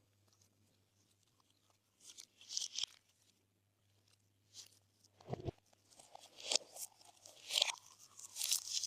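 Glossy slime being squished and pressed by hand, making crackling pops. There is a short cluster of pops about two seconds in, then repeated squishes and pops from about halfway on.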